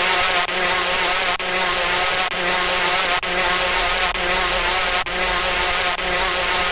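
Ceiling fan running with a loud, steady buzzing hum that dips briefly about once a second.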